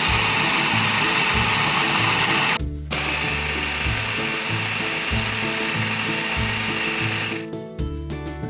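Food processor running on high speed, blending cooked white beans with oil into a spread. It cuts out briefly about two and a half seconds in, runs again, and stops near the end. Background music with a steady beat runs underneath and is left on its own after the motor stops.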